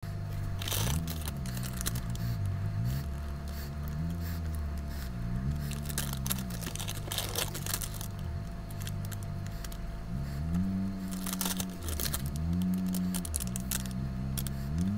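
Slow background music with low held notes that slide up and down in pitch, over scattered light crackles and rustles of coloured pigment powder being sprinkled onto crumbled gym chalk.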